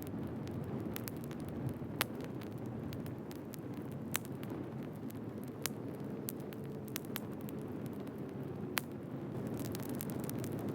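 Firewood burning: a steady low rush with scattered sharp crackles and pops at irregular intervals.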